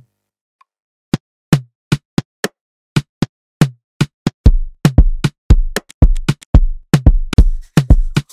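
Electronic drum beat being built on a drum pad controller. After a silent first second, sparse short percussion hits come in, and about halfway through a deep kick drum joins them in a steady afrobeat groove.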